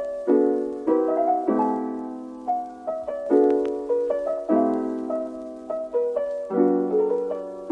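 Gentle background piano music: soft chords struck every second or two and left to fade, with a simple melody over them.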